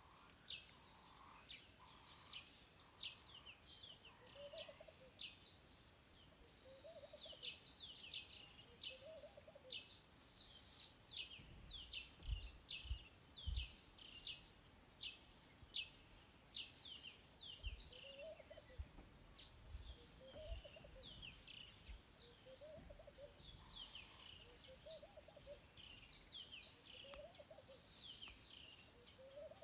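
Birds calling faintly: a steady stream of quick, high, downward chirps, with a lower call repeating every second or two. A few soft low bumps come near the middle.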